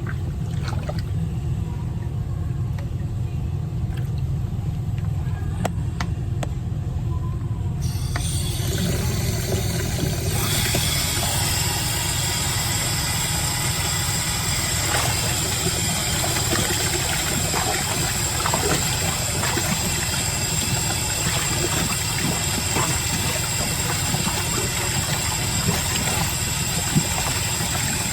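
Tap water running onto rags in a sink, turned on about eight seconds in and opened up fuller a couple of seconds later, over a steady low hum.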